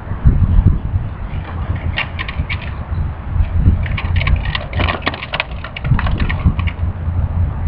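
Crinkling and crackling of a plastic packet being handled and pulled open, coming in quick runs of sharp crackles starting about two seconds in, over a steady low rumble.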